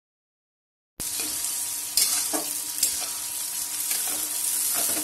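Sliced onions sizzling in hot oil in a metal kadai. A metal spatula scrapes and knocks against the pan now and then as they are stirred. The sizzle cuts in suddenly about a second in.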